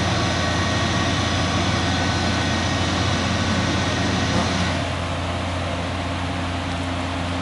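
Sikama Falcon 5C reflow furnace running: a steady machine hum with several faint, steady whining tones over it. The higher hiss drops away about five seconds in.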